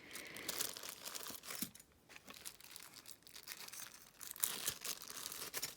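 Packaging crinkling and tearing as small items are unwrapped by hand, with scattered light clicks and rustles; the busiest bits come near the start and about three quarters of the way through.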